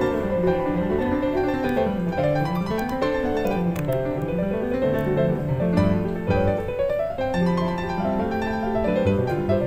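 Background piano music: a flowing run of notes that climbs and falls in rolling waves through the lower notes, with chords above, playing without pause.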